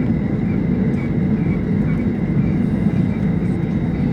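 Boeing 737-800 with its CFM56-7B turbofan engines running, a steady low rumble with no sudden changes.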